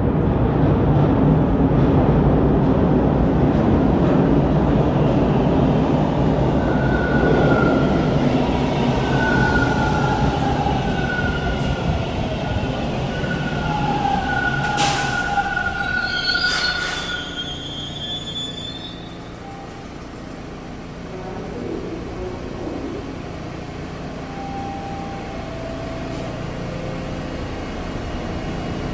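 TTC Bombardier T1 subway train rumbling loudly along the platform, with high-pitched wheel and brake squeals as it slows. A couple of short hisses come about halfway through, then it settles to a quieter steady hum after about 18 seconds, typical of a train coming to a stop at the station.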